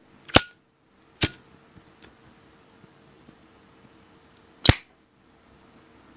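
Zippo windproof lighter's metal lid clicking sharply three times: two clicks about a second apart, the first with a brief metallic ring, and a third about three and a half seconds later.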